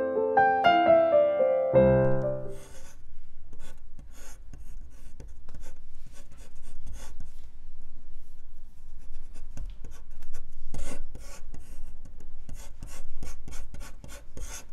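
Piano music ends on a held chord about two seconds in; then a fountain pen nib scratches across paper in many short, quick strokes as lines are sketched.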